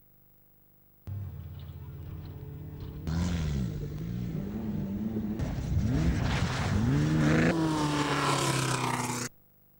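Off-road race cars' engines revving hard, the pitch rising and falling over and over as they drive through loose sand and over jumps. The sound starts about a second in, grows louder, and cuts off suddenly near the end.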